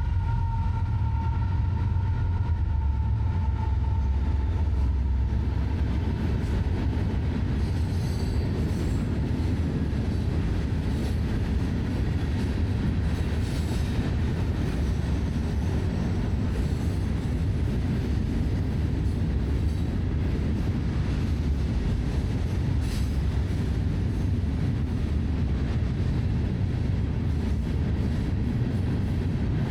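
Florida East Coast Railway freight train rolling past with a steady low rumble of locomotives and cars on the track. A fading high tone from the train dies away in the first few seconds.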